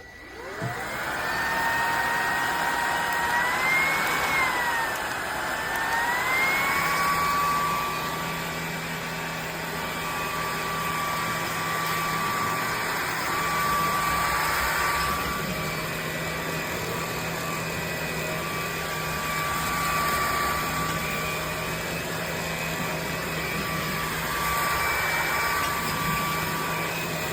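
Bissell PowerClean FurFinder cordless stick vacuum switching on: its motor spins up to a high whine within about a second, the pitch wavers for a few seconds and then settles into a steady whine over a rush of air.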